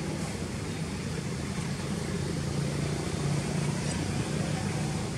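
Steady low rumble of a distant motor vehicle, slightly louder in the middle.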